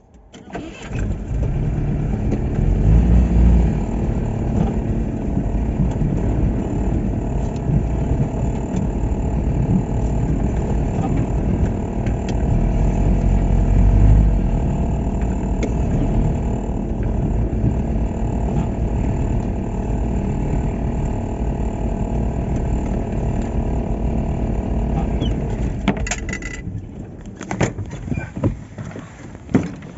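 Car engine running and the vehicle driving, heard from inside the cabin: a steady low rumble of engine and road noise with two heavier low swells. It comes up suddenly about half a second in and falls away near the end, with a few sharp knocks.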